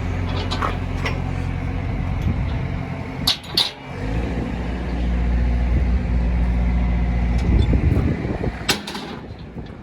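A vehicle engine running steadily; about four seconds in its pitch changes and it grows louder, then it fades near the end, with a few sharp clicks along the way.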